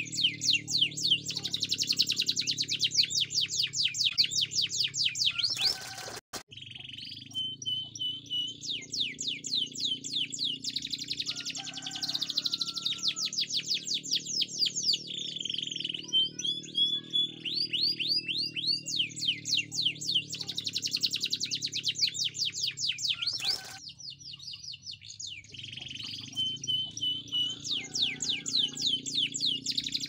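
Canary singing in long phrases of fast rolling trills, rapid high sweeping notes broken by short whistled notes, four phrases with brief pauses between them. A low steady drone runs underneath.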